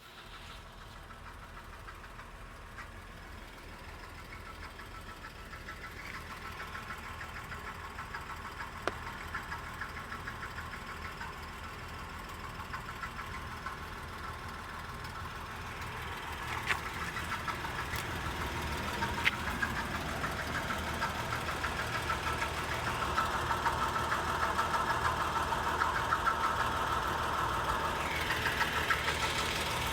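A fast rattle from a 2011 Acura MDX over its V6 engine running, growing gradually louder, with a few sharp clicks along the way.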